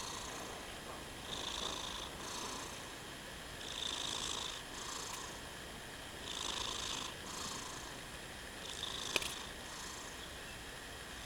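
A sleeping cat snoring loudly, a whistly breath in and a breath out about every two and a half seconds. A single sharp click about nine seconds in.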